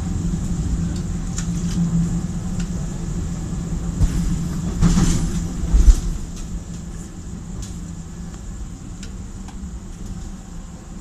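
Running noise of a moving regional passenger train heard from inside the carriage: a steady low rumble and hum. A few knocks come between about four and six seconds in, and after that the rumble is somewhat quieter.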